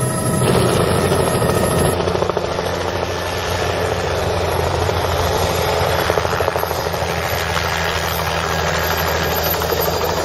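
Helicopter running steadily as it comes in to land, its rotor heard first from inside the cabin, then after about two seconds from the ground as it hovers down onto the helipad.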